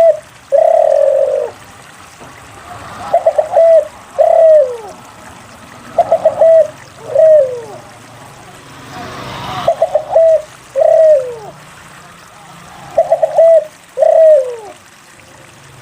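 Spotted dove (derkuku) cooing. Its phrases recur about every three seconds: a quick stutter of three short notes, then one long coo that falls in pitch.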